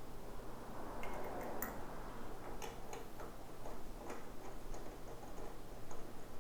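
Scattered light metallic clicks and ticks of lug nuts being spun on by hand onto the rear wheel studs of a Honda VFR800F's single-sided swingarm hub.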